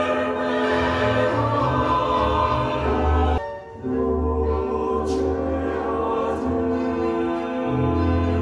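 Choral music with strong deep bass, played in the room through home-built planar dipole speakers and a Bill Fitzmaurice Tuba horn subwoofer, with a brief break about three and a half seconds in.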